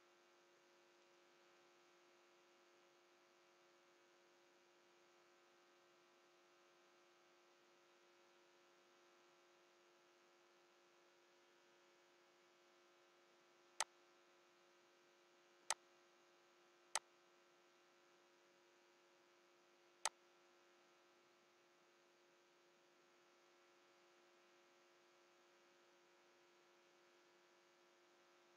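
Near silence with a faint steady electrical hum, broken about halfway through by four sharp single computer-mouse clicks spread over about six seconds.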